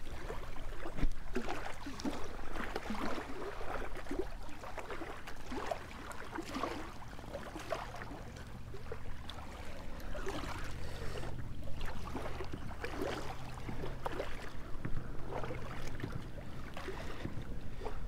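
Small irregular splashes and sloshing of river water as a large blue catfish is held and handled in the shallows at the water's edge, over a low steady hum.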